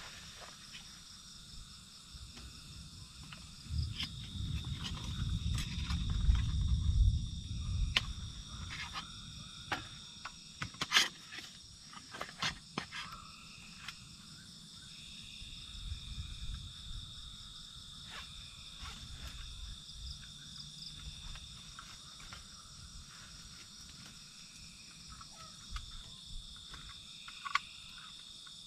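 Steady chorus of night insects, with a stretch of low rumbling handling noise a few seconds in and a few sharp clicks and knocks of camping gear being handled at the table.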